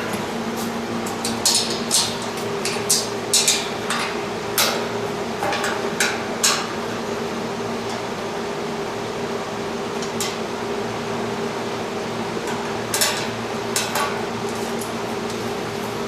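Metal clinks and taps from tools and steel parts being handled while a home gym's weight-stack covers are worked on: a run of sharp knocks in the first several seconds, a quieter stretch, then a few more. A steady hum runs behind them.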